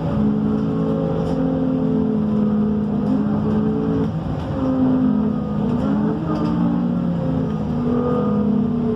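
The engine of a MAN Lion's City A37 city bus running while the bus is under way, heard on board. Its note steps up and down in pitch several times.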